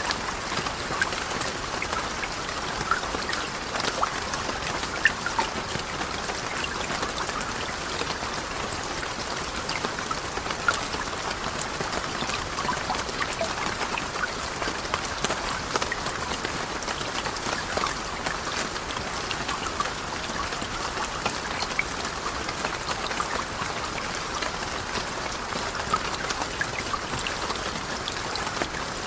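Steady rain: an even hiss of falling water with many small drop ticks scattered through it.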